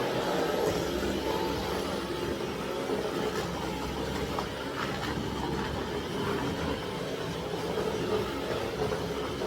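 Dyson cordless stick vacuum running steadily.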